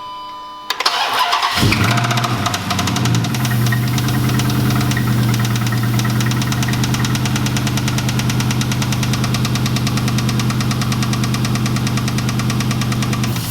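A brief tone, then the 2006 Dodge Charger R/T's 5.7 L Hemi V8 is cranked. It catches about two seconds in, flares briefly and settles into a steady idle with a fast, even ticking over the engine note, which the owner suspects is a lifter.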